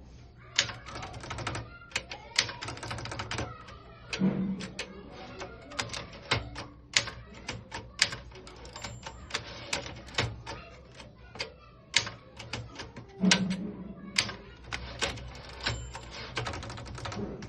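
Keller & Knappich Princess 500 manual typewriter being typed on: quick, irregular key strikes of the typebars against the platen in runs, with short pauses between them. Two brief lower-pitched sounds come about four and thirteen seconds in.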